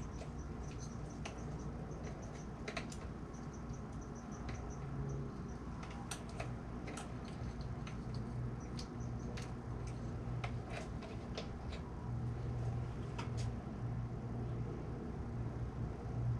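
Scattered light clicks and taps of small parts being handled, over a low steady hum.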